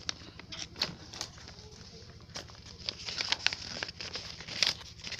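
Paper rustling and crinkling in scattered short crackles as a folded letter is handled and opened.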